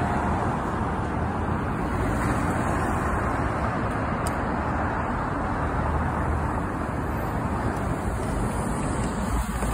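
Steady road traffic noise from a busy city street, with cars and trucks passing.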